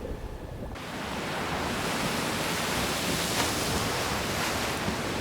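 Steady rushing ocean-water noise that comes in abruptly about a second in, over a low rumble.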